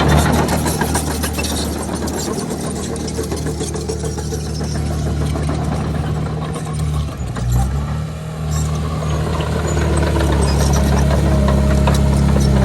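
Diesel engine of a Komatsu D31PX crawler bulldozer running steadily under load, with a brief dip and shift in engine note about seven to eight seconds in.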